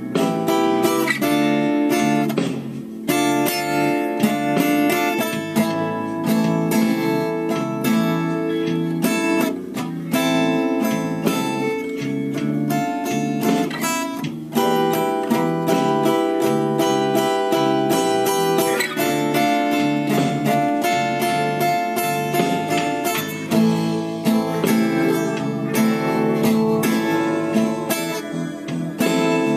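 Steel-string acoustic guitar strummed in a steady rhythm, playing one chord after another, with a few brief breaks between phrases.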